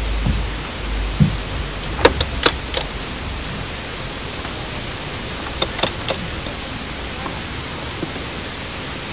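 Steady hiss with a few sharp clicks and knocks, four about two seconds in and three more about six seconds in, from someone stepping up into a pop-up truck camper through its rear door, feet on the step and hands on the door frame.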